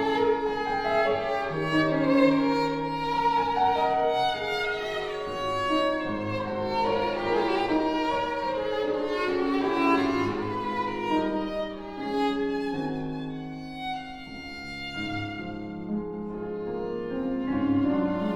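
Classical chamber music: a violin playing a sustained melodic line over cello and piano, with a quieter, thinner passage in the second half.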